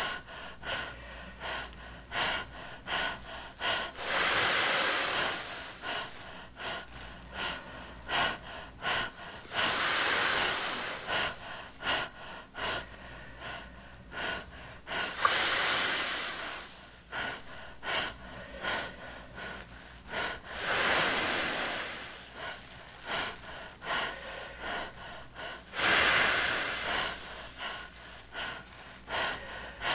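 A man blowing up a large clear plastic bag by mouth: deep, loud breaths about every five to six seconds, with many short crackles in between.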